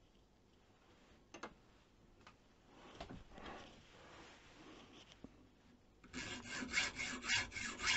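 Junior hacksaw cutting a laminated strip of fiberglass PCB and grey PVC to sleeper length, held in a bench vice: about six seconds in it starts quick, even back-and-forth strokes, about three or four a second. Before that only a few faint handling clicks.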